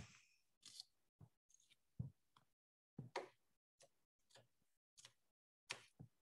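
Knife chopping shallots on a cutting board: faint, irregular knocks, about two a second.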